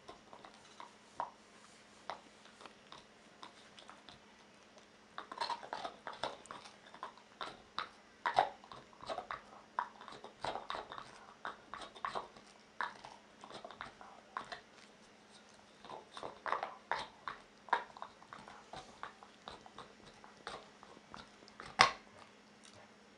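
Pit bull gnawing an antler chew: irregular scraping and clicking of teeth on hard antler, coming in busy spells with pauses between. One sharp, louder crack near the end.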